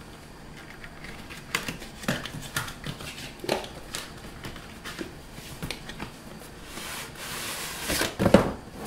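Cardboard graphics-card box being opened by hand: a flap pulled open with scattered taps, scrapes and rustles, then a longer sliding scrape as the inner box is drawn out of its sleeve, ending in a few louder knocks.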